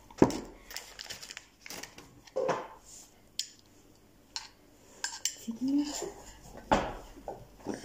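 Clinks and knocks of a spoon and a glass baby-food jar being handled: several separate sharp taps, the loudest near the end.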